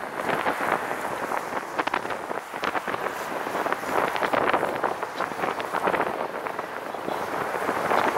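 Wind noise on the microphone mixed with tyre and road noise from a recumbent trike riding along a street: a rushing, crackling noise that swells and fades.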